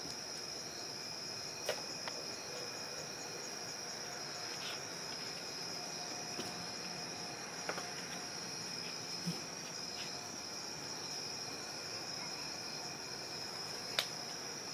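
A few soft taps and knocks from kittens playing in a cardboard tube, with a sharper knock near the end, over a steady high-pitched background drone.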